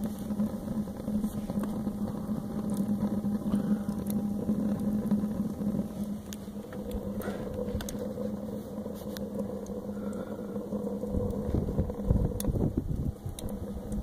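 Small wood-fired rocket stove burning hard, a steady rushing draft with a constant low hum and scattered sharp crackles from the burning wood. A low rumble rises near the end.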